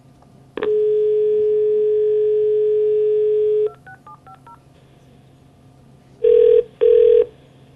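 Telephone line sounds as a call is placed: a steady dial tone for about three seconds, then a quick run of about six keypad tones, then two short beeps of ringing tone near the end.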